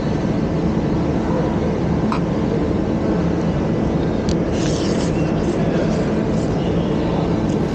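Steady loud rumble and hiss of a busy food-court dining area, with a couple of light clinks of a metal spoon against a plate about two and four seconds in.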